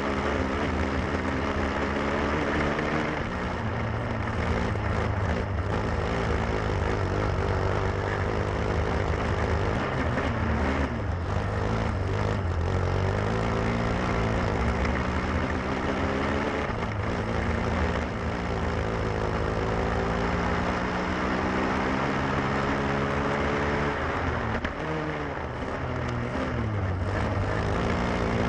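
Lifan single-cylinder four-stroke kart engine under racing load, heard on board over a steady rushing noise. Its pitch climbs and then drops back several times as the kart brakes for corners and accelerates out again.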